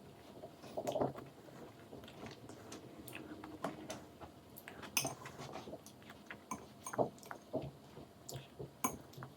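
A child eating octopus: chewing and mouth sounds with irregular small clicks and an occasional clink of dishes or cutlery, a few louder ticks about a second, five seconds and seven seconds in.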